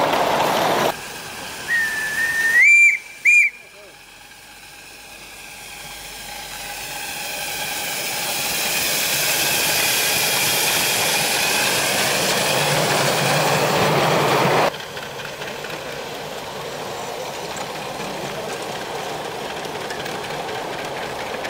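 Steam whistle of a 5-inch gauge live-steam model locomotive: one blast that steps up in pitch, then a second quick toot. The locomotive's steam hiss and running noise then build up steadily as it comes close and passes, followed by steadier, quieter running of the train farther off.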